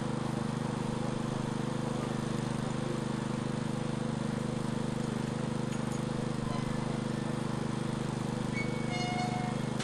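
An engine running steadily at constant speed, an even hum made of several steady pitches. A short high tone sounds near the end.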